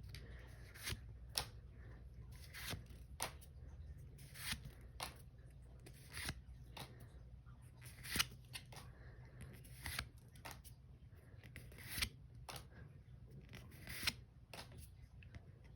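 Pokémon trading cards being handled and slid one by one through a fresh booster pack: short papery flicks and snaps, roughly one every half second to a second.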